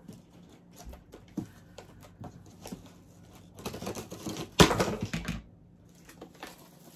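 Scissors slicing and scraping along packing tape on a cardboard box, with scattered clicks and cardboard rustling, then a louder stretch of tearing and crackling cardboard with one sharp crack about halfway through as the box flaps are pulled open.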